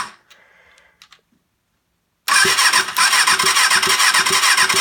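Electric starter cranking a Kawasaki ZXR inline-four engine over, with a rhythmic pulsing, to test for spark at a removed plug. A short burst of noise comes right at the start; the cranking begins a little after two seconds in and stops abruptly at the end.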